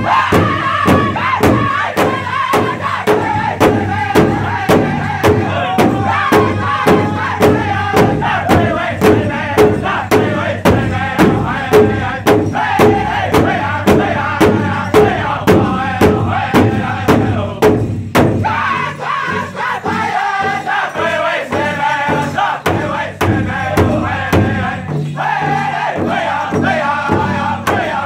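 Powwow drum group singing a crow hop song in unison chorus, with steady, evenly spaced beats on a big powwow drum. The drumming stops about two-thirds of the way through while the singing carries on.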